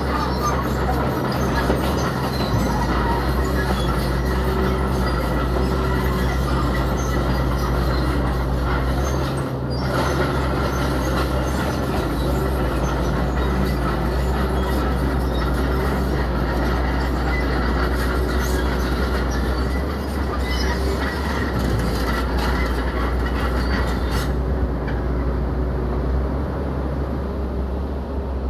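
Tracked earthmoving machine working: a diesel engine running steadily under a dense metallic clatter and squeal from the crawler tracks. About 24 s in the clatter and high hiss drop away, leaving mostly the engine.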